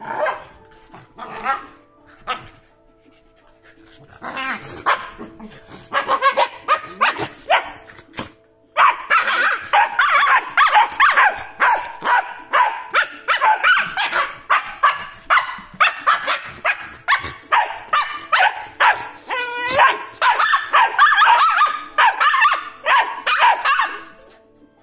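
A Shiba Inu and a Great Dane puppy barking and yapping at each other. The barks come in scattered ones at first. From about nine seconds in they become a rapid, almost unbroken string of high-pitched barks, several a second, that stops shortly before the end.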